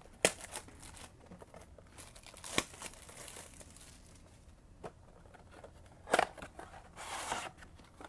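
Plastic shrink wrap being torn and crinkled off a sealed cardboard trading-card mega box, with sharp snaps about a quarter second in, around two and a half seconds in and about six seconds in, and a longer crinkle near the end.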